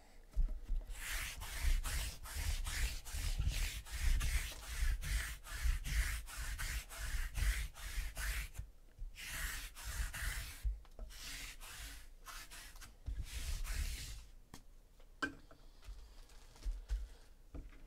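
Sticky lint roller rolled back and forth over a table surface in quick strokes, about three a second, each one a dry rasping rub; the rolling stops about 14 seconds in, leaving a few light clicks.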